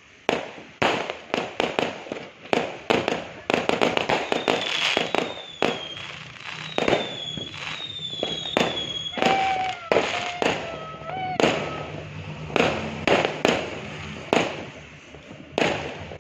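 Fireworks going off in quick, irregular bangs, thickest in the middle, with a few high whistling tones that fall in pitch.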